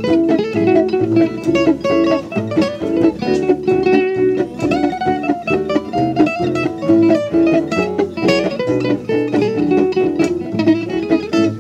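Live music: an acoustic guitar played in fast plucked notes.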